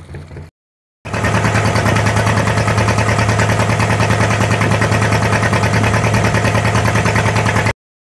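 Fishing boat's engine running steadily under way, a fast even throb over a strong low hum. It starts abruptly about a second in and cuts off shortly before the end.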